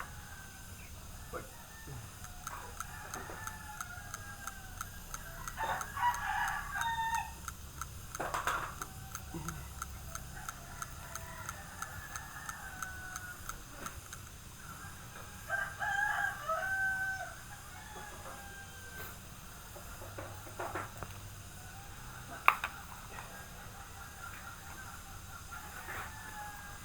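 A rooster crowing twice, about six seconds in and again about sixteen seconds in, with fainter chicken calls in between. A single sharp click comes about twenty-two seconds in.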